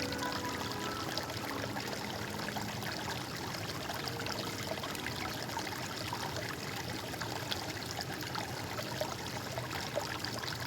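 Water flowing and trickling steadily, with many small splashes and drips.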